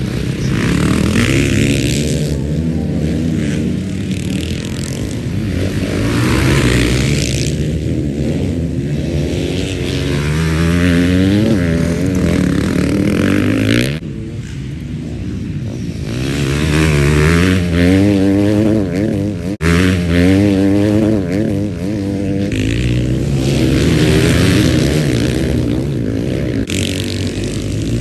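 Motocross bikes of the 250/450cc classes accelerating out of a dirt corner one after another, each engine revving up in steps through the gears and dropping back as it shifts, several passes in a row.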